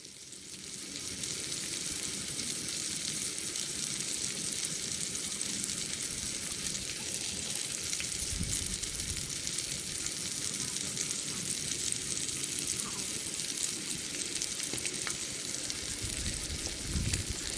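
Wagyu steak sizzling steadily as it sears over high heat, a continuous hiss that builds over the first second or two and then holds.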